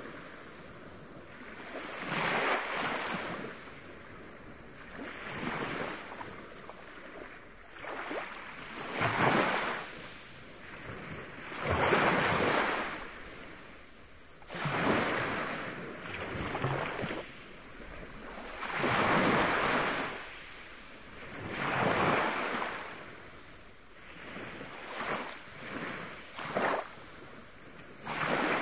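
Waves breaking and washing up on a sandy, rocky shore, the surf hiss swelling and fading every two to three seconds.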